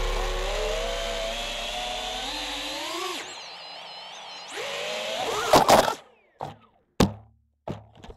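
FPV quadcopter's brushless motors whining, the pitch climbing and wavering with the throttle, then a few loud sharp hits about five and a half seconds in as the quad crashes. After that it is mostly quiet, with a few short clicks.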